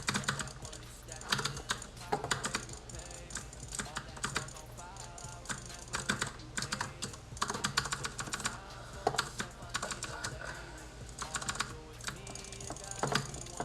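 Razer DeathAdder 2013 gaming mouse buttons clicking, in quick runs of several clicks with short pauses between, faint music underneath.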